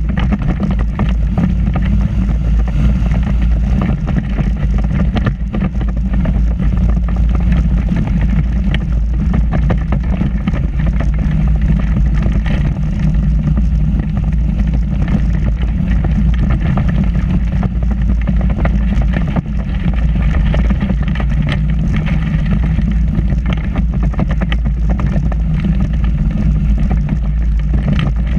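Weight-shift microlight trike's engine and pusher propeller running steadily as the trike rolls along on the ground, with a low rumble of wind on the microphone.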